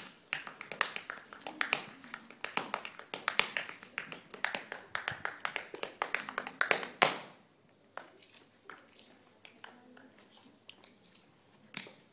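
Tap shoes striking a dance floor in fast, dense runs of taps, ending in a loud stamp about seven seconds in, followed by slower, softer single taps with no music.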